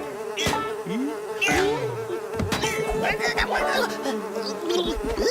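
Cartoon sound effects: a steady buzz with quick swooping whistle-like pitch slides and a few knocks over it.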